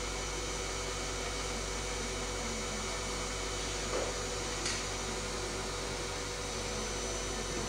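Steady electrical hum with a hiss behind it, and two faint ticks about four seconds in.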